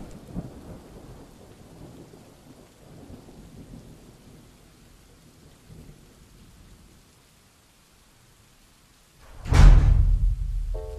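Faint, low rumbling thunder, then a sudden loud clap of thunder about nine seconds in that rolls away over a couple of seconds.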